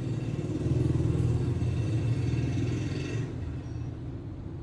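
Low rumble of a passing road vehicle, swelling about a second in and fading after about three seconds.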